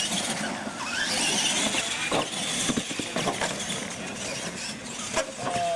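Radio-controlled monster trucks racing on dirt: their motors whine, rising and falling in pitch as they speed up and slow, over the rush of tyres on loose ground.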